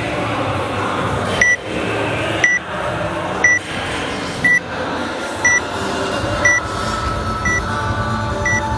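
Workout countdown timer beeping: short, even, high beeps once a second, eight in all, counting down to the start of the workout. A steady low background hum runs under them.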